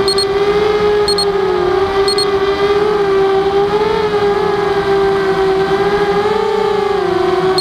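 Walkera Rodeo FPV quadcopter's motors and propellers whining in flight, a steady pitch that wavers slightly as the throttle shifts. A short high double beep sounds about once a second near the start.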